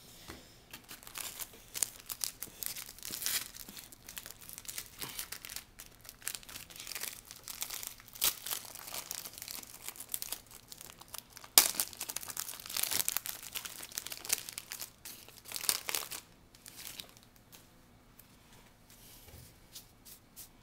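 A jumbo pack of 2008 Bowman football trading cards being opened and handled: its wrapper is crinkled and torn in irregular crackling bursts, with one sharp loud crack about halfway through, and the handling dies down near the end.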